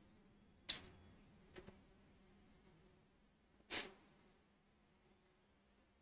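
Quiet room tone with a faint steady hum, broken by a few short noises: a sharp one just under a second in, two faint ticks about a second later, and a brief breathy sound near four seconds.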